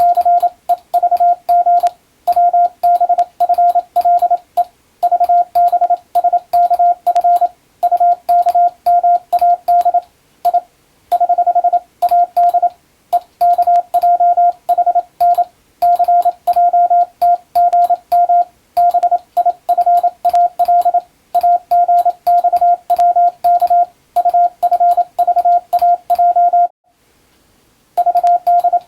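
Morse code (CW) in English text sent with an electronic keyer: a single tone of about 700 Hz keyed in rapid dots and dashes, in character groups separated by short gaps, with clicks along with the keying. It pauses for about a second near the end, then resumes.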